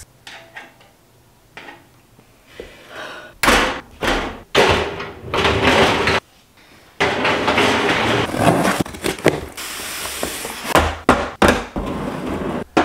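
Knocks and clatter from handling the parts of a white steel utility cart during assembly, then a longer stretch of rattling and sliding from clear acrylic organizer drawers being handled.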